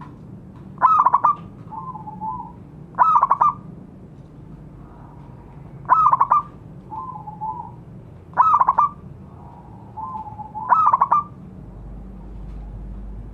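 Zebra doves (perkutut) singing: five loud, short trilled cooing phrases about every two and a half seconds, with fainter answering coos between them.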